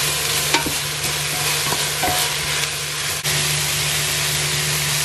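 Sliced carrots, onion and zucchini sautéing in a stainless steel pot: a steady sizzle, with a wooden spoon stirring and scraping through the vegetables. The sizzle gets a little louder about three seconds in.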